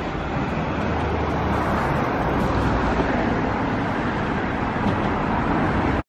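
Steady rumbling noise of an approaching Nose Electric Railway train, growing a little louder about half a second in and then holding.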